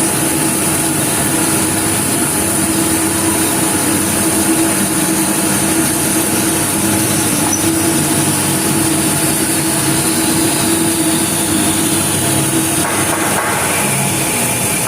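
CNC lathe deep-cutting a part: a steady spindle hum and high whine under continuous cutting noise, which changes character near the end.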